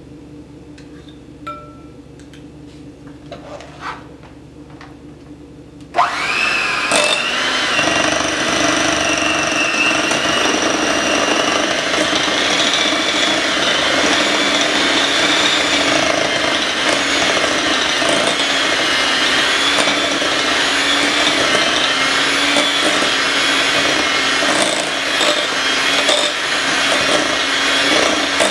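Electric hand mixer switched on about six seconds in and running steadily, its beaters whirring through cream cheese and butter in a glass bowl to cream the frosting base. Before it starts, a few light clicks of a utensil against the bowl.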